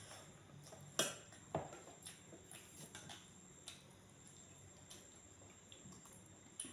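Stainless-steel bowls and plate clinking as a small steel bowl is picked up and handled, with a sharp clink about a second in, a second one soon after, and softer taps later.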